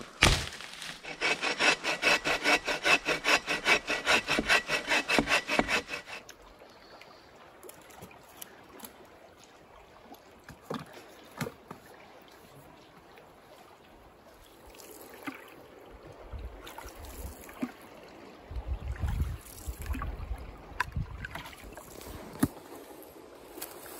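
Hand saw cutting through wood in quick, even strokes, about four a second, for roughly six seconds. After that come only quiet scattered clicks and knocks.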